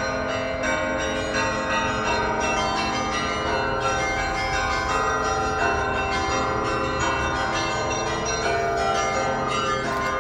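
Church bells pealing: many bells of different pitches struck in quick succession over one another, each note ringing on under the next.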